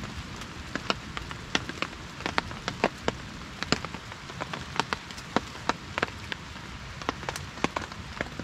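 Water drops tapping irregularly on a surface, a few sharp taps a second over a steady hiss.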